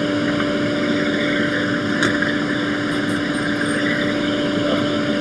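Steady whir of an electric blower fan with a constant low hum underneath.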